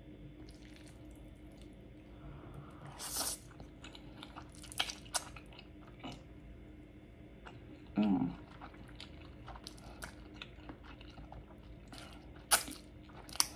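Close-miked eating of ramen noodles: wet mouth clicks and chewing, with a noisy slurp about three seconds in and a short hummed voice sound about eight seconds in.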